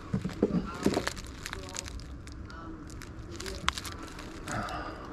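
Scattered small clicks, knocks and rustles of hands working a fitting at a hole in wooden siding, with one sharper click about three-quarters through.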